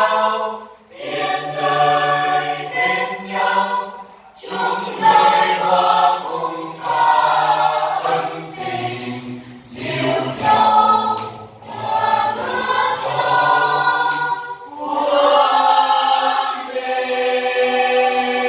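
Mixed choir of men's and women's voices singing a Vietnamese hymn together, phrase by phrase, with short breaks for breath between phrases.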